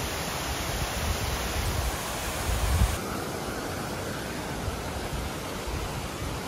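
Steady rushing of a waterfall cascading down a forest creek, with a low rumble that is loudest just before the sound turns duller, with less hiss, about three seconds in.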